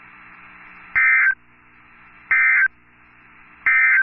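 Three short bursts of EAS SAME digital data tones, a harsh two-tone warble, each about a third of a second long and a little over a second apart. This is the end-of-message signal that closes a NOAA Weather Radio warning. Faint radio hiss sits between the bursts.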